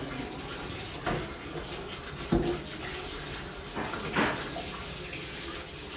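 Steady rushing noise like running water, with a few scattered knocks, the sharpest about two and a half seconds in.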